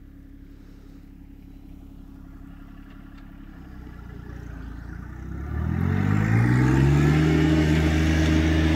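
John Deere 1025R compact tractor's three-cylinder diesel engine running low and faint, then, about five and a half seconds in, revving up to a higher speed and holding there, much louder.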